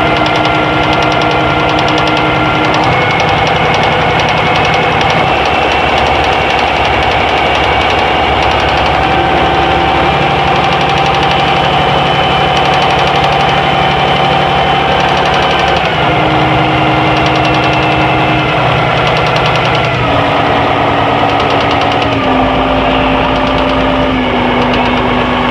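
Yanmar 6KH diesel engine running with a rapid, regular knocking: the abnormal noise (異音) being recorded. A few steady tones over it shift in pitch now and then.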